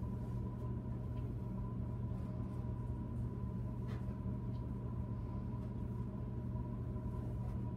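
A steady low mechanical hum with a thin, high steady whine over it, and a faint tick about four seconds in as plaster investment is scooped into the bowl on the scale.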